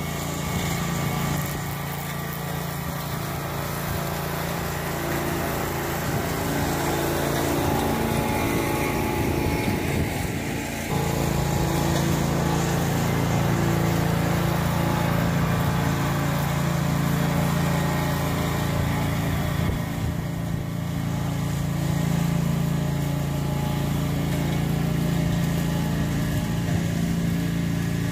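Small engine of a homemade walk-behind brush mower running steadily under way, with a brief dip about eleven seconds in before it picks back up a little louder.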